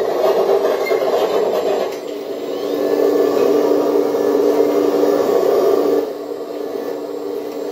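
Scale RC hydraulic excavator's pump running with a steady whirring hum. It swells for a few seconds mid-way as the arm and bucket move, then drops back about six seconds in.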